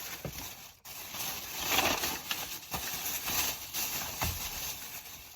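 Paper rustling and rubbing, most likely napkins or a food wrapper being handled, with a few soft knocks.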